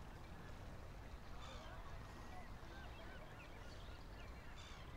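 Faint shoreline ambience: distant birds calling in scattered short chirps and squeaks over a low, steady rumble.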